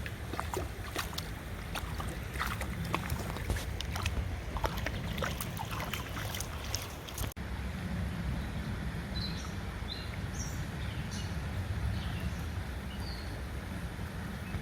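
Fast-running stream water swollen by storm rain, with wind rumbling on the microphone; sharp splashing clicks through the first half, and a few short high chirps in the second half.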